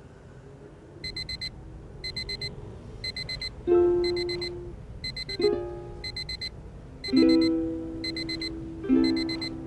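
Bedside alarm clock beeping in quick bursts of four, about once a second. From about four seconds in, plucked notes of light music come in over the beeping.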